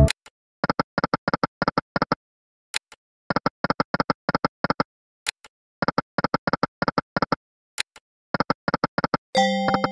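EGT 'Lucky & Wild' online slot game sound effects as the reels spin over and over. There are four runs of short pitched ticks, about four a second, with a single sharp click between runs, and a pitched win tune begins near the end.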